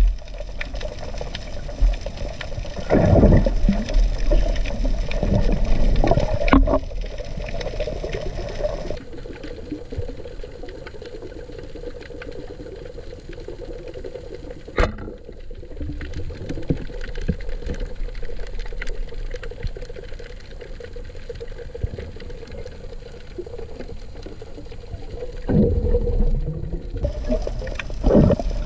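Underwater sound of a freediver's dive, heard through an action camera's waterproof housing: water rushing and bubbling, with louder surges in the first seven seconds and again near the end. In between it is duller and more muffled, with one sharp click about halfway through.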